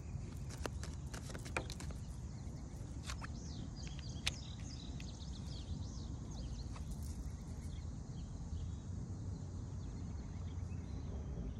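A deck of cards shuffled by hand, a run of light clicks over the first few seconds, over a steady low outdoor rumble, with a few brief bird chirps a few seconds in.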